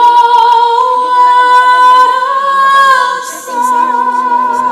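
Fireworks-show soundtrack music: a choir holds one long, high sung note on "London", and a lower note joins in near the end.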